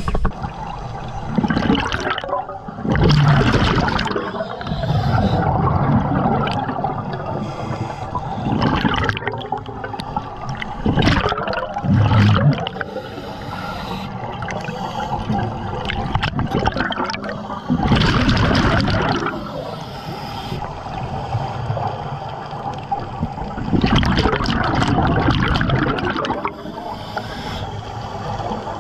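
Scuba diver's regulator breathing underwater: bursts of exhaled bubbles gurgling past every few seconds over a steady watery rush.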